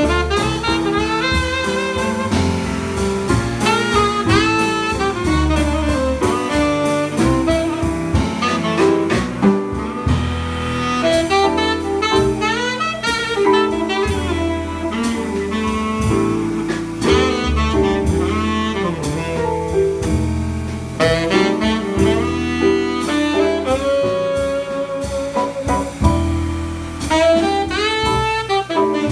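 Live jazz quartet: a tenor saxophone plays a gliding lead melody over piano chords, walking upright double bass and soft drum kit.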